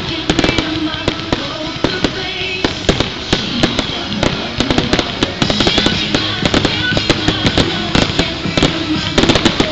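Fireworks going off in quick succession: dozens of sharp cracks and pops, several a second, from crackling gold stars and fountains. Music plays underneath throughout.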